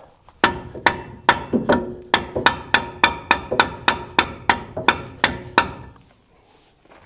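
A mallet hammering on metal brake parts in a quick run of about twenty blows, three to four a second, each with a short metallic ring, stopping near the end.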